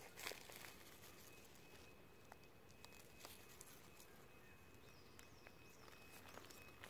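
Near silence: faint outdoor background with a few soft, scattered clicks, and a faint high whistle about five seconds in.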